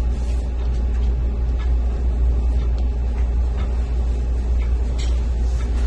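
A steady low rumble throughout, with faint rustling of bed sheets as the top sheet is pulled out and rolled down toward the foot of the bed, a little more distinct about five seconds in.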